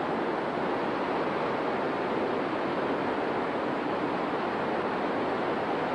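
Steady rushing of whitewater in Hermit Rapid on the Colorado River, a constant even roar of churning water with no breaks.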